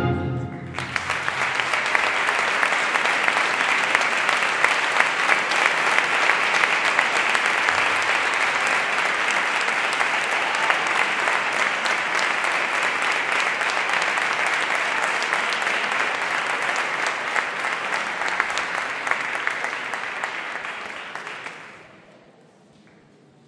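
Audience applauding steadily as a brass band's march ends, then the clapping dies away about 22 seconds in.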